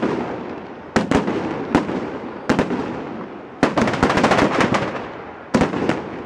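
Firecrackers going off in a burning falla: single sharp bangs about once a second, with a rapid string of cracks from about three and a half to five seconds in.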